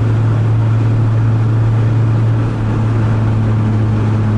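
Lada 2114's engine and road noise at highway cruising speed, heard from inside the car: a steady low drone that eases briefly about two and a half seconds in.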